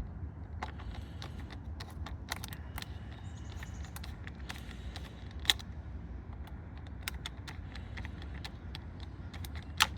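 Screwdriver loosening the metal hose clamp on a car's air intake duct: scattered small metallic clicks and scrapes, with a sharper click about five and a half seconds in and another near the end, over a low steady rumble.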